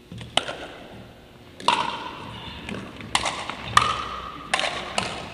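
Pickleball rally: hard paddles striking a plastic ball and the ball bouncing on a wooden gym floor. About six sharp pocks come a second or less apart, each ringing briefly in the large hall.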